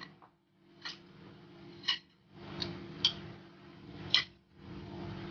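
A spoon clinking against cookware about six times at irregular intervals as corn is scooped out, each clink ringing briefly, over a faint low hum.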